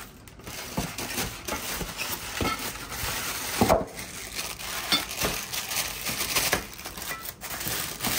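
Coated stand-mixer beater attachments being handled and unpacked: an irregular run of clinks, knocks and rustling, with one louder knock about three and a half seconds in.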